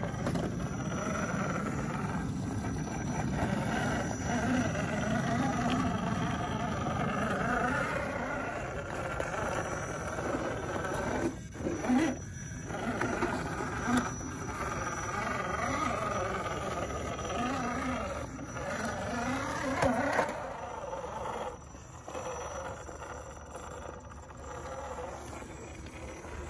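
RC4WD D90 scale crawler's electric motor and geared drivetrain whining, the pitch rising and falling with the throttle as it crawls over rock, with a couple of brief stops.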